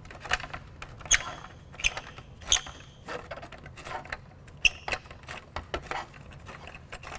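Cigarette lighter receptacle being unscrewed and worked loose from a 1987–1993 Ford Mustang's plastic console top panel: irregular small clicks, scrapes and rattles of metal against plastic, with a handful of sharper clicks, a few of them ringing briefly.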